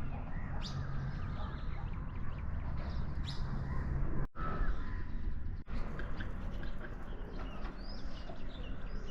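Birds chirping outdoors: scattered short, high calls, several of them sweeping upward, over a steady low rumble.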